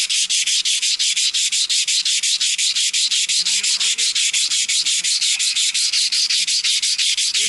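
Sandpaper rubbed by hand on a metal part in fast, even back-and-forth strokes, several a second. The corner is being smoothed so the new coupling slides on easily.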